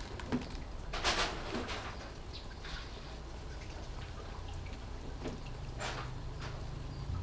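A few short handling noises as ingredients are picked out of a bowl beside the cooking pot, over a low steady hum.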